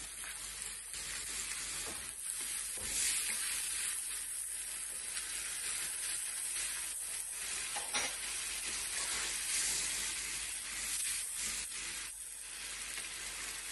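A thick onion and herb sauce sizzling steadily in a frying pan as a wooden spoon stirs it, with a few soft scrapes of the spoon against the pan.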